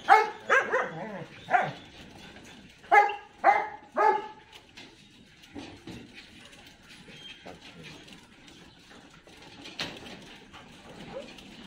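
A Belgian Malinois yelping in short, high cries while held down for a microchip implant: a quick run of yelps at the start, three more about three to four seconds in, then it falls quiet.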